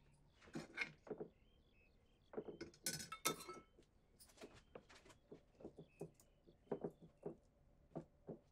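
Metal spoon clinking and scraping against a steel pot and stainless-steel plates as rice is served, with a cluster of louder ringing clinks about three seconds in, then lighter scattered taps.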